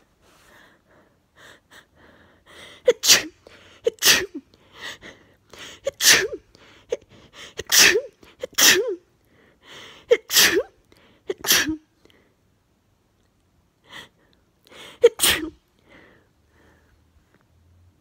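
A person sneezing over and over in a sneezing fit: about eight sneezes, each with a quick gasping breath in just before it. After a pause of a few seconds there is one last sneeze.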